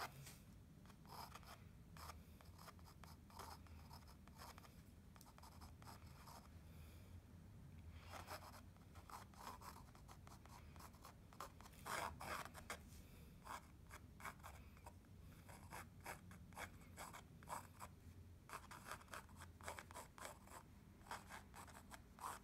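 Pencil sketching on a stretched canvas: faint, short scratchy strokes in irregular clusters, with a louder run of strokes about halfway through.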